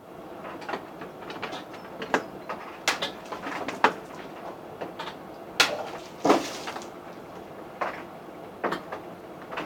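A cutlass blade hacking at a plastic milk bottle: a string of sharp knocks and slaps as the blade hits the bottle and it falls. The loudest hit is about four seconds in, with two more strong ones around six seconds, over a steady background noise.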